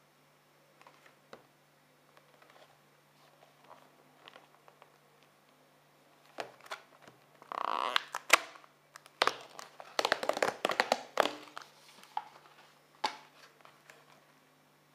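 Cardboard carton handled by hand: light rubs and taps, then, from about halfway through, a few seconds of crackling, scraping and tearing as the lid is pulled open and the plastic-wrapped bars inside shift, followed by a few last taps.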